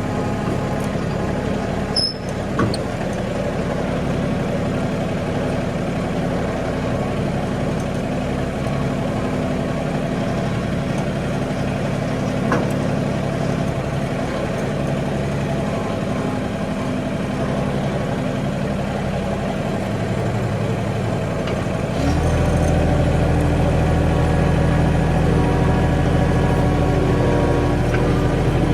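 Mahindra 1626 compact tractor's diesel engine running steadily; about three-quarters of the way through, its sound steps up louder and heavier.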